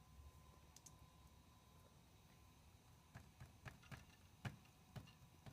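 Near silence, then faint clicking on a PowerBook G3 laptop, about half a dozen clicks in the last two seconds or so.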